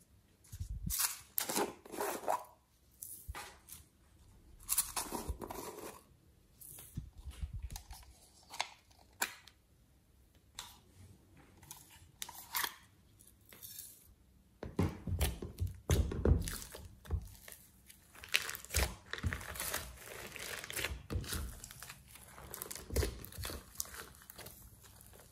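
Slime-handling sounds: separate crackly clicks and rustles as plastic toy containers are handled and squeezed. From about halfway, denser and louder squishing and crackling as thick slime full of glitter and sequins is folded and pressed in a glass dish.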